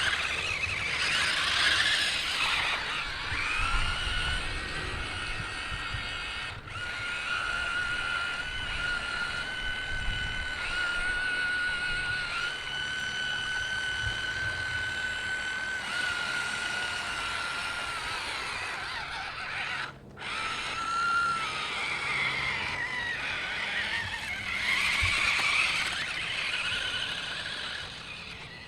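Electric motor whine of a DEERC 1:16 amphibious RC monster truck's dual motors. The pitch rises and falls with the throttle and holds steady for about ten seconds in the middle. A louder rushing noise comes near the start and again near the end.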